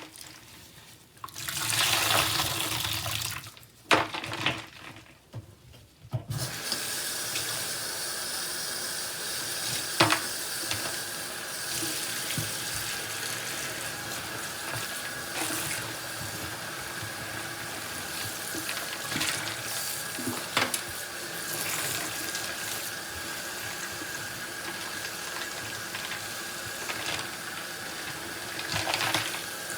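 Tap water running steadily into a sink over sponges being rinsed. The first six seconds hold a few louder, irregular sounds with short gaps before the stream settles, with an occasional click.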